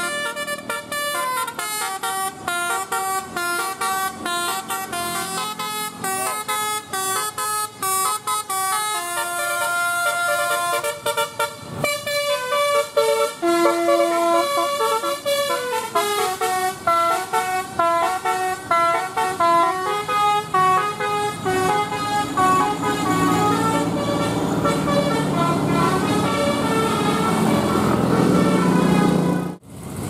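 Basuri telolet multi-tone bus horn playing fast melodic runs of notes that step up and down, over and over. A bus engine's low rumble grows under it in the last third, and the sound drops out briefly just before the end.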